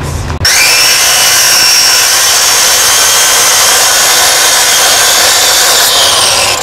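Angle grinder cutting steel: the motor starts about half a second in and runs steadily, a high whine over the hiss of the cut.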